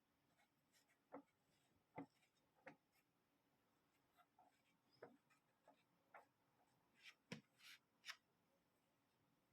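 Faint, scattered taps and soft rustles of hands handling a leather-bound book, about a dozen brief clicks with a short rustle a little after seven seconds in.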